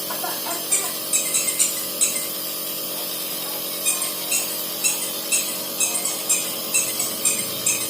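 Small electric nebulizer compressor running with a steady hum, with short sharp clicks, a cluster about a second in and then about two a second in the second half.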